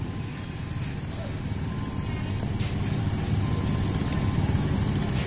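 Diesel-electric locomotive running with a steady low engine rumble as it approaches at the head of a passenger train. There are a couple of brief high squeaks about two and three seconds in.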